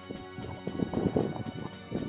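Fishing reel being cranked and handled while fighting a fish: a fast, irregular clicking rattle, loudest about a second in, over background music.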